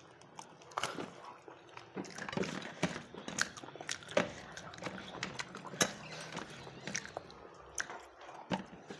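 A person chewing a mouthful of rice, with irregular wet mouth clicks and smacks.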